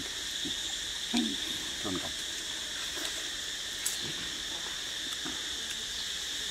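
Steady, high-pitched chorus of insects such as crickets or cicadas in tropical forest. Short, low falling sounds break in about once a second, the loudest about a second in.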